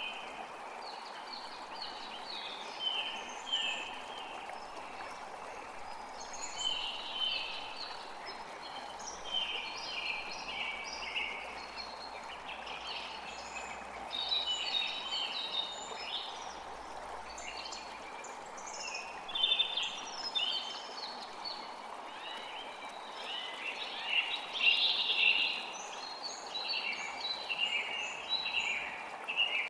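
Many small birds chirping and singing in quick, overlapping calls over a steady rush of running water.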